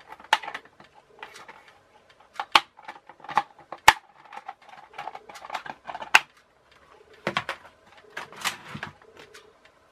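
Plastic clips around the edge of a toy boat's deck clicking and snapping free one after another as the deck is prised off the plastic hull: a string of irregular sharp clicks, the loudest about four seconds in.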